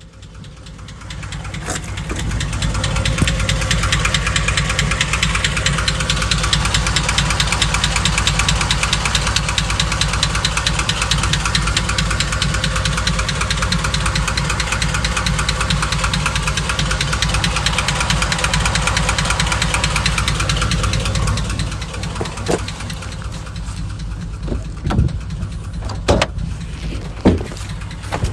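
2005 Chevy Silverado engine running with a rapid, steady ticking knock, a noise the owner cannot place between rod knock, lifter tick and piston slap. About three quarters of the way through it gets quieter, and a few louder clicks stand out near the end.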